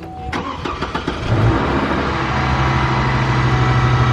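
Truck engine cranking briefly, then catching about a second in and running on at a fast, high idle, with a newly fitted VVT solenoid.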